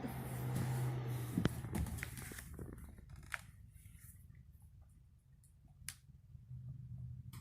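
An old dog snoring: one long, noisy snore over the first two to three seconds, then quieter breathing broken by a few faint clicks, with the next snore starting near the end.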